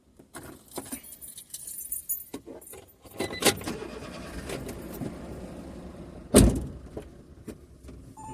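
Keys jangling with small clicks and knocks, then a car running steadily from about three seconds in, with one loud thump a little after six seconds in.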